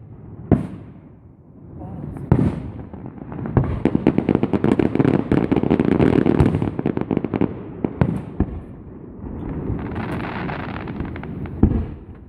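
Fireworks going off: a few single booms, then a long run of rapid crackling reports for several seconds, and another sharp boom near the end.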